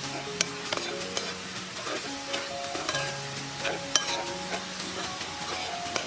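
Snails being stir-fried in a pan: a steady sizzle of hot oil with scattered sharp clicks and scrapes of the stirring utensil.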